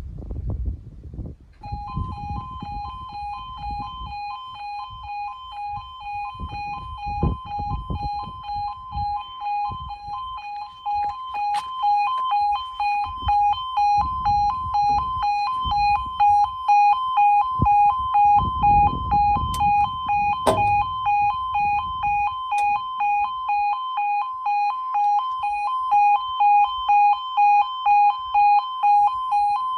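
Level crossing warning alarm starting up about two seconds in: a two-tone electronic warble, pulsing regularly and louder from about halfway through. It warns that a train is approaching and the barriers are about to come down. Wind rumbles on the microphone beneath it.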